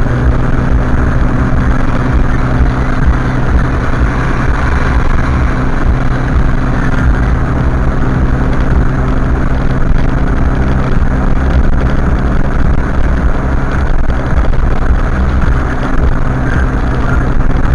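A vehicle driving at steady speed: a constant low engine drone with road noise.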